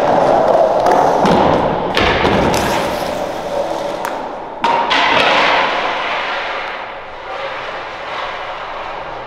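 Skateboard wheels rolling on a concrete bowl, with heavy thuds as the skater falls and slams onto the concrete in hard-shell knee pads. Sharp impacts about two seconds in and again just before five seconds, the rolling noise fading toward the end.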